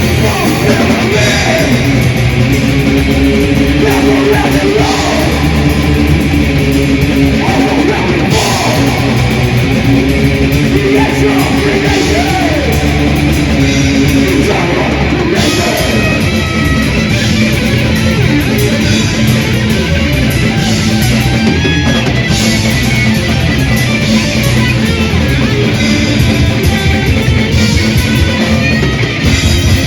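Death/thrash metal band playing live and loud: distorted electric guitars over bass and drums, a dense, unbroken wall of sound.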